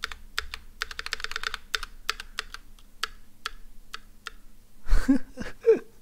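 Keys on a mechanical keyboard fitted with NK Blueberry tactile switches being pressed: a quick run of clacks about a second in, then single presses spaced out. A short wordless vocal sound comes near the end.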